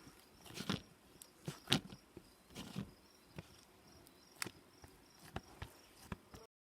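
Homemade slime being squished and poked by hand, giving irregular wet clicks and small popping squelches that cut off suddenly near the end.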